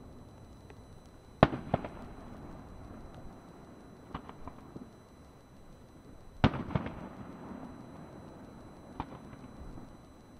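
Aerial firework shells bursting: two loud bangs about five seconds apart, each followed a moment later by a second bang, with fainter pops in between.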